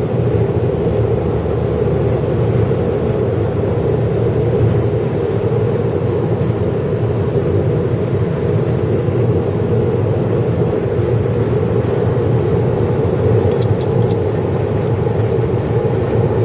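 Steady drone of a vehicle driving at highway speed: engine and tyre road noise, unchanging throughout.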